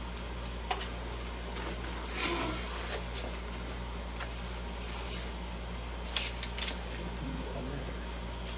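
Cardboard box being opened and a folded paper letter pulled out: scattered rustling of paper and cardboard with a few sharp taps, loudest about a second in and again around six seconds, over a steady low hum.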